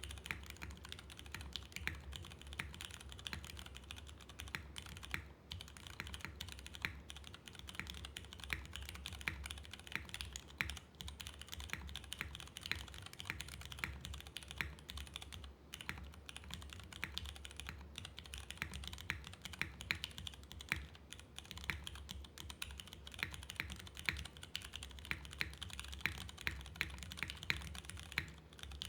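Continuous, fast typing on a TGR x GAF 910 mechanical keyboard with lubed Cherry MX Clear tactile switches, oiled springs, an aluminium plate and CRP keycaps: a dense, unbroken run of key clicks.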